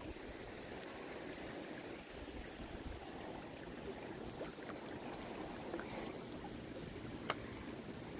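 Faint wind and water ambience, an even hiss with a few light ticks scattered through it and one sharper click about seven seconds in.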